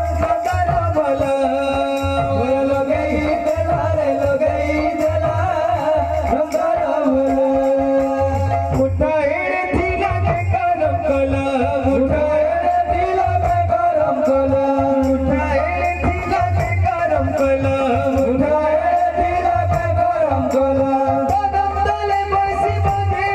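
Odia devotional kirtan music: a male voice singing a melody that glides up and down, over a two-headed barrel drum and small brass hand cymbals beating a steady, quick rhythm.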